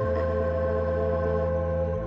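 Background music of held keyboard chords; the chord changes at the start and again at the end.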